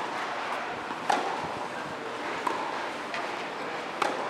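Tennis ball struck by rackets in a rally on an outdoor court: a few sharp pops, each with a short ringing echo, the strongest about a second in and again near the end.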